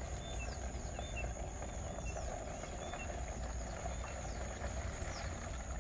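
Fresh milk being poured from one bucket into another, a steady pour, over a constant high insect trill and scattered short bird chirps.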